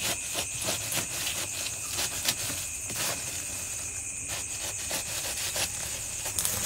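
Ash and cinders being scraped and raked out of a clay mud stove's firebox with a wooden-handled tool: irregular gritty scrapes and clicks. Crickets trill steadily behind.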